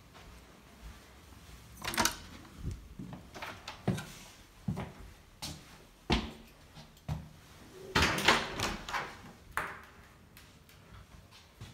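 Doors being handled: a series of irregular clicks and knocks from door handles, latches and doors opening and closing, loudest about two seconds in and in a cluster about eight seconds in.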